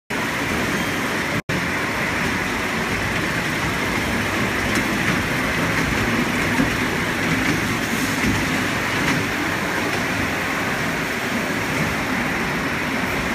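Kids' amusement train ride running on its steel track: a steady rumble and hiss from the wheels and drive. The sound cuts out for an instant about a second and a half in.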